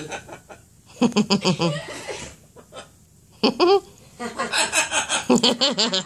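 Blue-and-gold macaw imitating human laughter in quick 'ha-ha-ha' pulses, in three bursts: one about a second in, a short single call about three and a half seconds in, and a longer run from about four seconds on.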